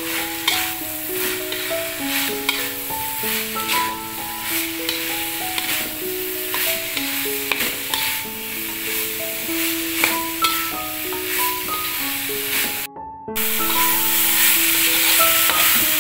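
Carrots and green beans sizzling in a wok of yellow spice paste, with a metal spatula stirring and clicking against the pan, over a simple background melody of held notes. Everything drops out for a moment about 13 seconds in.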